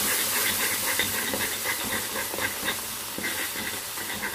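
Hot sugar caramel hissing and bubbling violently in a saucepan just after cold cream and butter have been poured in, with many small irregular pops over a steady hiss of steam while it is stirred. The hiss slowly dies down as the mixture settles.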